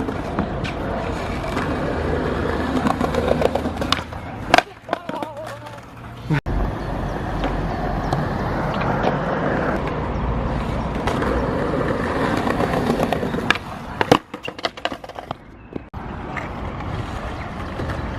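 Skateboard wheels rolling steadily, broken by several sharp clacks of the board popping and landing as tricks are tried, a cluster of them about four seconds in and another near three-quarters of the way through.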